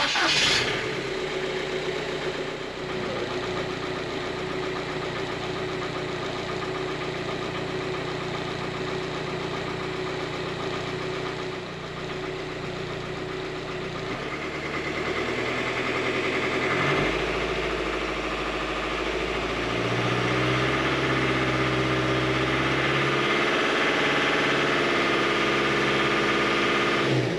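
Volkswagen BEW 1.9 TDI four-cylinder turbodiesel running steadily, its speed stepping up a little in the second half.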